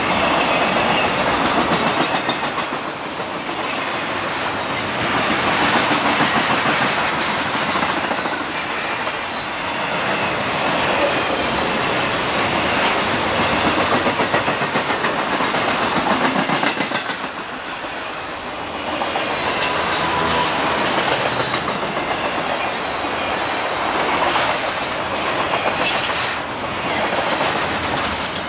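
CSX intermodal freight train of highway trailers on flatcars passing close at speed: a loud, steady rush and clatter of steel wheels on the rails, rising and falling as the cars go by, with some high squeals in the second half.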